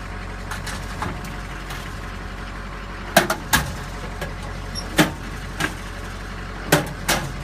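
Steel drawers of a truck service-body tool cabinet being pulled open and knocked against their stops, making about seven sharp metallic clacks from about three seconds in, over a steady low hum.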